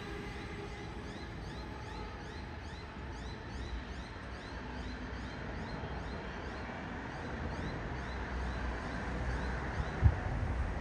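A bird chirping over and over, about three short rising chirps a second, over a low steady rumble. The chirps fade out near the end, and there is a bump shortly before the end.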